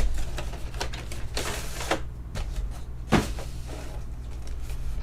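Trading cards and booster-pack wrappers being handled: scattered rustles and light clicks, one sharper click about three seconds in, over a steady low hum.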